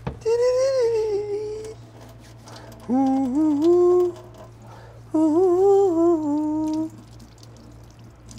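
A man humming a wordless tune in three short phrases with pauses between them, over a steady low background hum.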